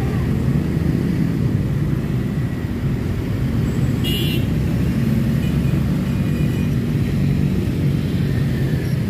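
Steady low rumble of slow, congested hill traffic, with motorcycle and car engines passing close. About four seconds in, a short high-pitched sound cuts in.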